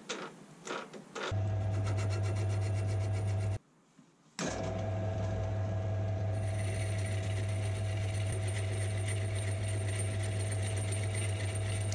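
Warco combined lathe-milling machine running at steady speed with a steady motor hum while turning down the end of a 7/8-inch steel tube. A few faint clicks come before it starts about a second in, and it drops out briefly about 4 seconds in.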